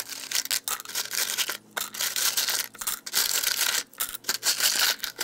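Broken CRT glass shards scraping and clinking together as they are scooped by hand from a plastic bowl and dropped into a rubber rock tumbler barrel. The sound comes in irregular bursts of rattling with short breaks between handfuls.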